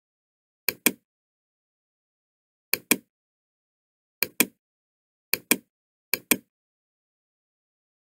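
Computer mouse clicked five times at irregular intervals, each click a quick double snap of button press and release.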